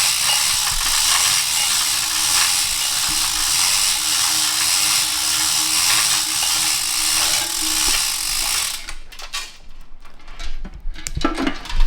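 A power tool runs steadily for about nine seconds, a hiss with a steady hum under it, then stops. A few clicks and knocks of metal parts follow.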